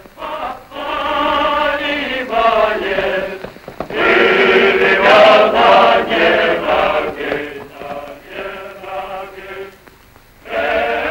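Men's choir singing a song in long held notes, in phrases with short breaks; loudest about four to six seconds in, with a pause shortly before the end.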